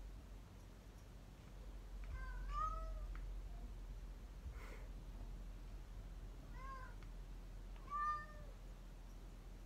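Domestic cat meowing in short calls that rise and fall in pitch: two close together about two seconds in, then two more later. The call about eight seconds in passes for a drawn-out "no".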